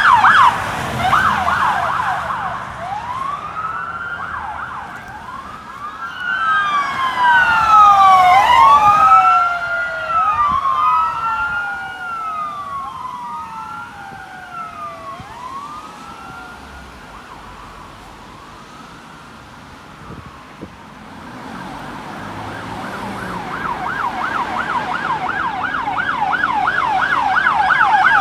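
Sirens of police SUVs responding with lights and sirens. A fast yelp at the start gives way to slow rising-and-falling wails, two sirens overlapping and loudest about eight seconds in, then fading away. From about twenty-two seconds a rapid yelp builds up loud as another unit approaches.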